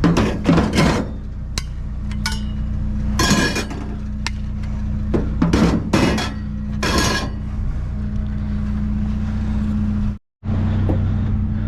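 Metal clanking and banging as scrap is pried and knocked apart by hand, in several clusters of strikes, over a steady low engine hum. The sound cuts out for a moment near the end.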